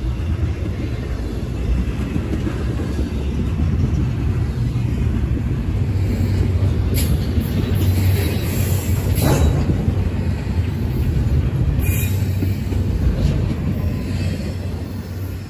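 Double-stack intermodal freight train's well cars rolling past close by: a steady low rumble of wheels on rail, with a few sharp clicks about seven, nine and twelve seconds in.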